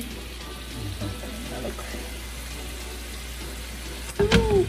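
Steady sizzle of an onion, pepper and seasoning mixture frying in oil in a skillet. About four seconds in, raw ground beef is tipped from a glass bowl into the hot pan, with a short, louder burst of sound.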